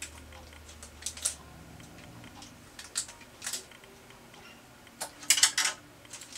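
Small scissors snipping into a crinkly plastic blind bag: a few separate sharp snips and crinkles, then a louder cluster of crackling clicks about five seconds in.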